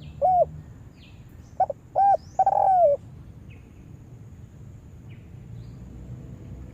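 Spotted dove (tekukur) cooing: a short note just after the start, then about a second and a half in its three-note phrase, two short coos and a longer one that falls in pitch. After that only faint chirps of small birds.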